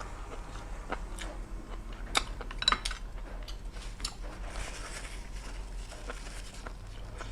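Close-miked eating of a noodle bowl: chewing, with a few sharp clicks of utensils against the bowl, the loudest about two to three seconds in.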